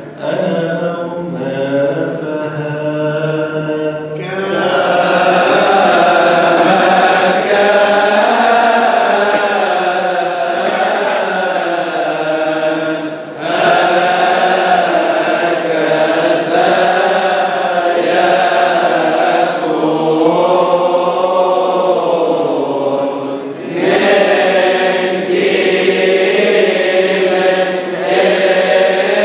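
Coptic liturgical chant: a priest's sung voice, with fuller voices of deacons joining in about four seconds in. The chant goes in long held phrases with brief breaks between them.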